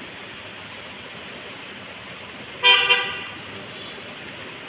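Steady rain falling on a wet concrete courtyard, with a short vehicle-horn honk partway through, in two quick pulses and louder than the rain.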